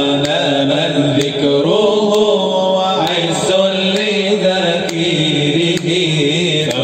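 Male voices chanting an Arabic nasheed: a winding, drawn-out melody over a steady lower drone.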